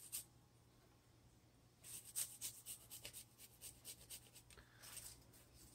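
A garlic clove being grated on the smallest holes of a cheese grater: faint, quick rasping strokes. The strokes stop just after the start and resume about two seconds in, running until near the end.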